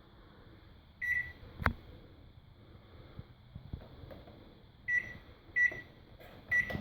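Microwave oven beeping while it is switched on to test that it works: one short beep about a second in, a sharp click just after, then three short beeps near the end.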